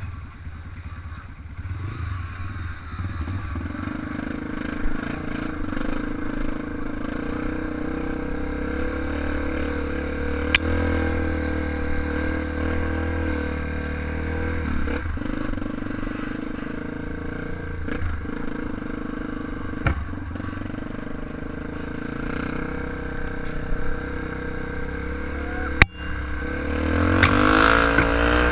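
Trail motorcycle engine running steadily, with a few sharp clicks and knocks, and the engine speeding up near the end.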